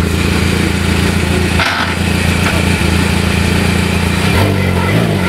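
A motor vehicle engine running steadily at a low, even pitch. A little over four seconds in, its pitch starts rising and falling as it revs.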